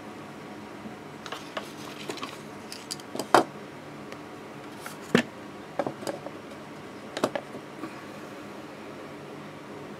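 Handling noise from a painting board being picked up off a chair: a string of short knocks, taps and clicks, the loudest about three and five seconds in, over a steady low hiss.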